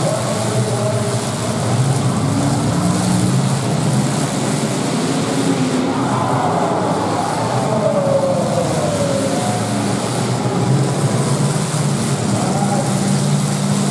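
Several demolition derby cars' engines running and revving together, their pitch rising and falling, with a few sweeping pitch glides in the middle, over a steady dense hiss of arena noise.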